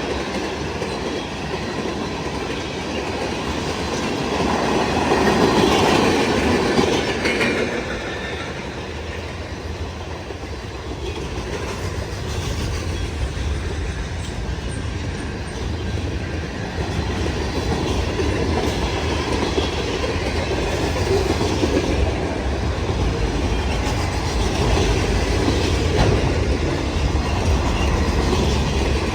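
Freight cars of a long CN freight train rolling past, a steady rumble with wheels clicking over the rail joints. It swells louder twice.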